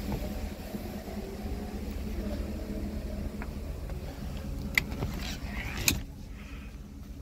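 Wind rumbling on the microphone while the camera is carried, then two sharp clicks about a second apart near the end, after which the wind noise drops away.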